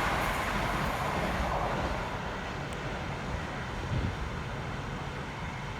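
Two coupled Class 325 electric mail multiple units running through, a steady rushing noise that fades as they draw away, with a low thump about four seconds in.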